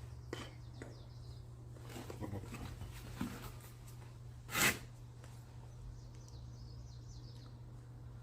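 A few light clicks and knocks, with one sharper knock about four and a half seconds in, over a steady low hum.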